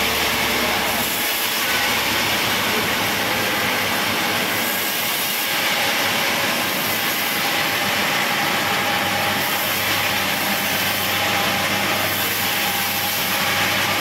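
Sawmill saw running and cutting lengthwise through a log as it is fed along the bench: a steady, loud machine noise with a hiss, unbroken throughout.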